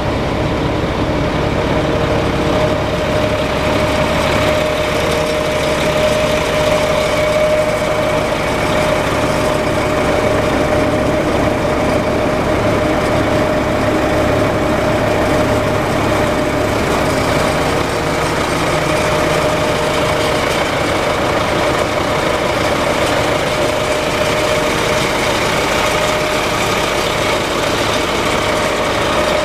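Diesel engine of a 2007 Sterling LT9500 Vactor truck idling steadily, with a constant whine over the engine note.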